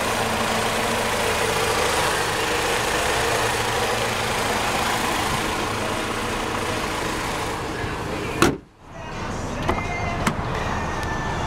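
2004 Chevrolet Cavalier's 2.2-litre Ecotec four-cylinder idling steadily with the hood up. About eight seconds in, the hood slams shut with one loud bang, followed by a couple of light clicks from the driver's door handle.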